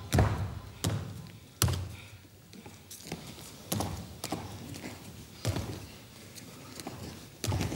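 Feet landing on a stage floor as a performer jumps and hops: about eight irregular heavy thuds.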